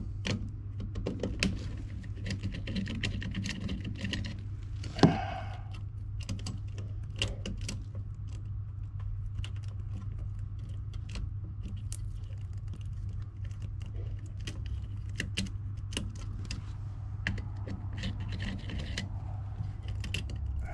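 Irregular small clicks and ticks of a screwdriver, wires and sheet metal being handled while tying power wires into an air handler's heat-kit terminals, with one sharper knock about five seconds in. A steady low hum runs underneath.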